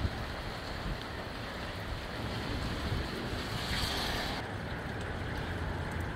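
Gusty wind blowing and buffeting the microphone with a low rumble, a stronger gust hissing about four seconds in and cutting off suddenly.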